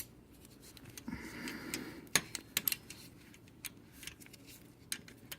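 Hand tools clinking as he changes over to a torque wrench: a scattering of sharp metal clicks and clinks, the loudest about two seconds in, with some rustling handling noise just before it.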